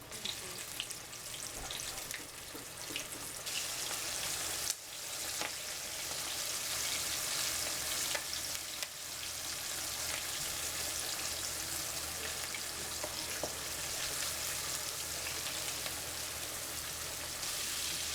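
Flour-dredged chicken pieces frying in hot oil in a skillet: a steady sizzle with small crackling pops, growing louder a few seconds in.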